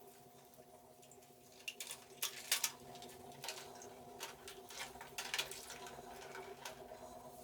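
Small sharp clicks and brief scrapes of laser-printer parts being handled and taken apart, loudest about two and a half seconds in, over a faint steady hum.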